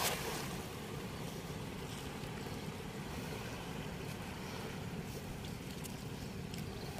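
Steady rushing of water flowing through a weir gate, an even low noise with a few faint ticks.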